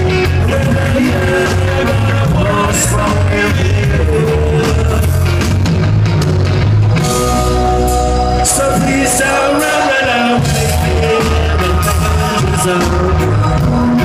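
A rock band playing live and loud: electric guitar, bass and drums, with a singer's voice over them, heard from within the crowd.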